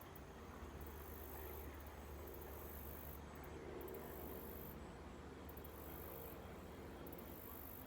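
Faint, high-pitched insect chirring in repeated trains about a second long, separated by short gaps, over a low steady rumble.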